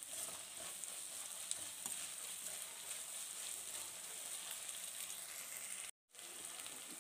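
Chopped onions, green chillies and ginger-garlic paste sizzling steadily in hot oil, with faint crackles, while they fry to drive off the raw onion smell. The sound cuts out for a moment near the end.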